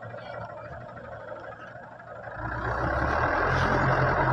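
A vehicle engine running, getting louder about two and a half seconds in and then holding a steady low hum.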